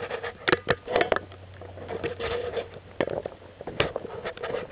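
Handling noise on the camera: irregular knocks, clicks and rubbing as hands fumble at it to press its button.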